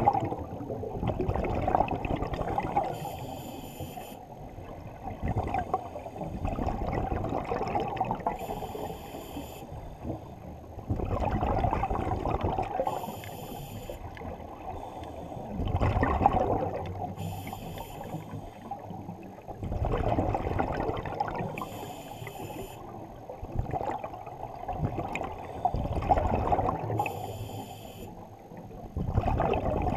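Scuba regulator breathing heard underwater: a short hiss of inhalation through the demand valve, then a long bubbling rumble of exhaled air, repeating about every four to five seconds.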